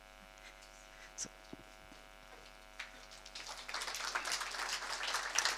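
Steady electrical mains hum with a few faint knocks, then audience applause building from about three and a half seconds in.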